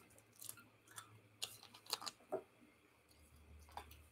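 Faint, scattered clicks and light crinkling from a small snack packet being handled, with a low hum coming in near the end.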